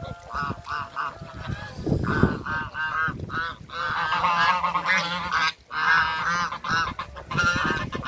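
A flock of domestic geese honking: short, arched calls repeated several to the second in runs with brief breaks, overlapping into a dense chorus around the middle.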